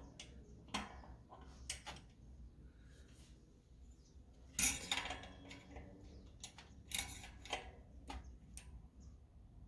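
Pliers and metal hub parts clicking and scraping as a small locknut on a bicycle rear hub axle is tightened to take up play in the hub bearing: irregular sharp clicks, with longer clinking scrapes about halfway through.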